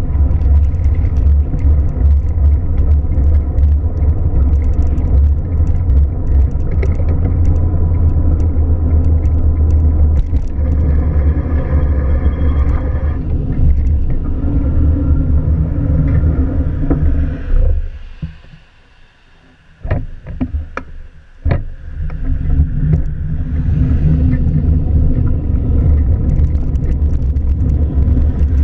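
Steady, loud low rumble of a car. About two-thirds of the way through, it drops away to near quiet for a few seconds, broken by a few sharp knocks, then comes back.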